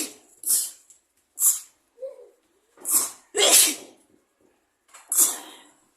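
A person sneezing again and again: about five sharp, hissy sneezes at irregular intervals.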